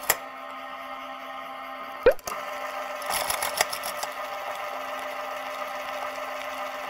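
Spar SP-800-J planetary stand mixer running steadily, its wire whip beating the warmed egg-and-sugar batter into foam. There is a short click and swish about two seconds in.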